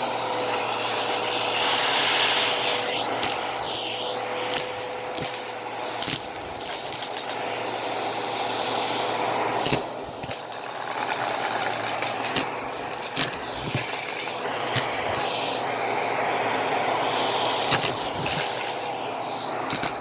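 Vacuum cleaner running steadily with a brush attachment scrubbed over carpet, its motor whine fading about halfway through, with scattered sharp clicks of coins being knocked about and sucked up.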